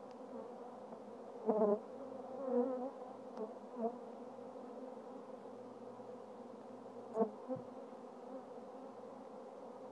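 Italian honeybees from a freshly installed package buzzing in a steady drone, swelling briefly louder a couple of times early on, with a short click about seven seconds in.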